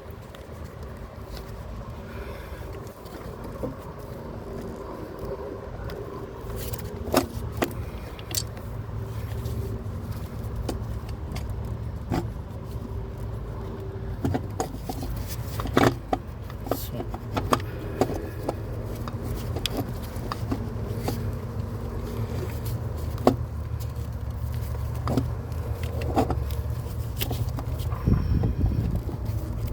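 Scattered metallic clicks, clinks and scrapes of hand tools and parts being worked loose during throttle body removal, over a steady low background rumble.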